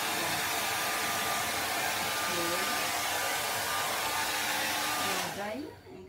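Handheld hair dryer blowing steadily, then switched off a little after five seconds in.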